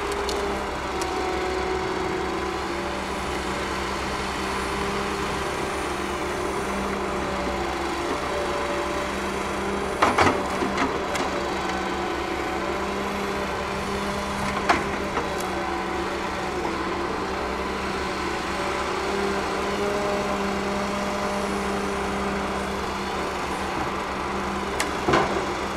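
A Ponsse Buffalo Alpine forest forwarder's 286-hp diesel engine running steadily while the hydraulic crane works, with sharp wooden knocks as the grapple takes hold of logs: a few knocks about ten seconds in, one a few seconds later, and a couple more near the end.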